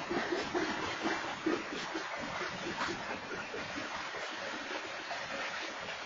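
Freight train cars rolling past: a continuous rumble of wheels on rails with irregular clanks and clatter.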